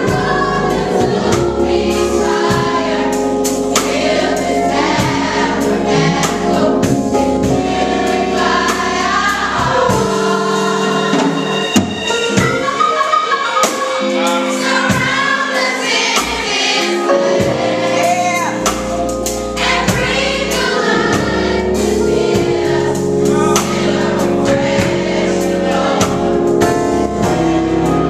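Youth choir singing a gospel song with accompaniment. The deep low part of the accompaniment drops out for several seconds in the middle, then comes back.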